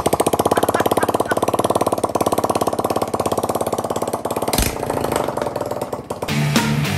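Kawasaki KLX140's single-cylinder four-stroke engine idling with an even, rapid putter, running quieter from about five seconds in. Music comes back in near the end.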